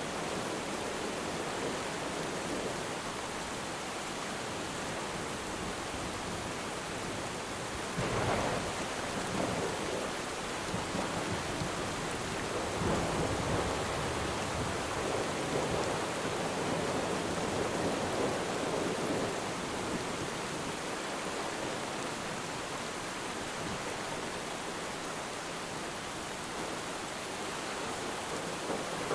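Steady rain falling on water, with distant thunder rumbling in suddenly about eight seconds in and again, longer, from about thirteen to nineteen seconds.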